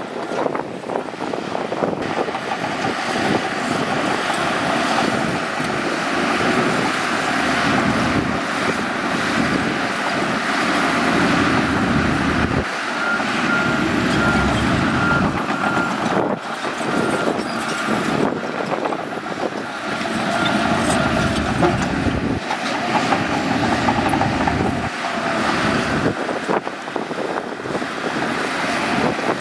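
Shantui bulldozer's diesel engine working hard and steadily, with a reversing alarm beeping in an even run for several seconds midway.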